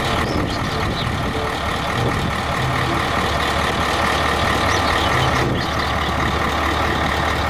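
Heavy three-axle dump truck's diesel engine running steadily, with an even hiss over a low drone.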